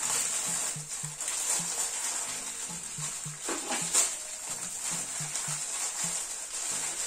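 Plastic bags of LEGO bricks being handled and opened, crinkling, with a sharp crackle about four seconds in. Under it runs background music with a repeating low note.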